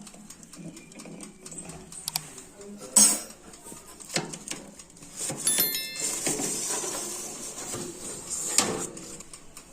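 An oven being opened and a metal baking tray being taken out: a sharp click about three seconds in, a brief metallic scraping squeal, some rustling, and a knock near the end as the tray is set down.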